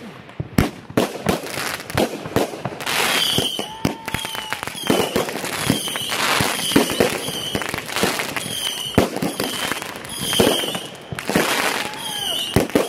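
Fireworks display: a dense run of bangs in quick succession with crackling, and short whistling tones between the reports.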